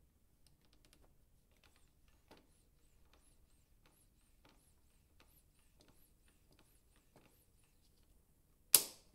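Small hand pump being worked on a bicycle tyre valve in the rubber stopper of a glass flask, pushing air in with faint clicks and a soft high squeak on the strokes. Near the end comes one short, loud burst of air.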